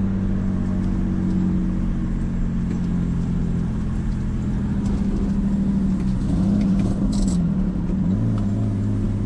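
Turbocharged BMW E46's engine running at fairly steady revs, still misfiring; the revs waver briefly about six to eight seconds in.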